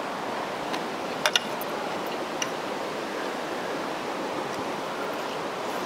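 Steady rush of running water from a small stream. A few light clinks of metal cutlery on a plate come about a second in and once more a second later.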